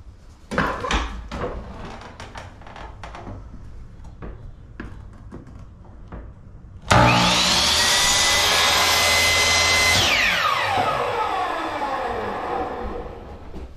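Knocks and clatter of a baseboard being set in place on a compact electric miter saw. About seven seconds in the saw starts with a rising whine and runs for about three seconds, cutting the baseboard at an angle for an outside corner. It is then switched off, and the blade winds down in a falling whine.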